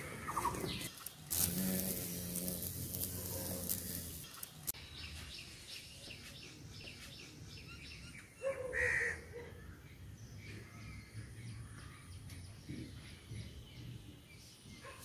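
Outdoor background with birds calling, including one short, louder call about eight and a half seconds in. Near the start there is a louder stretch of about three seconds with a low hum under a hiss.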